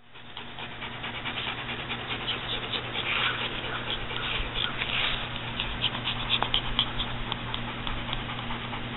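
Small dogs moving about close to the microphone, making short scuffling and breathing noises over a steady low hum.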